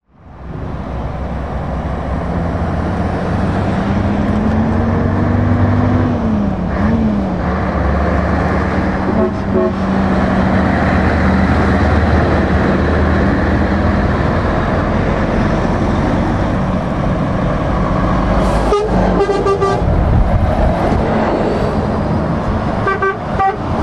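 Heavy trucks driving past at close range, led by a Scania 143M's V8 diesel. Engine pitch rises a few seconds in, then drops as it shifts gear. Short horn toots sound a few times, in a cluster about two-thirds of the way through.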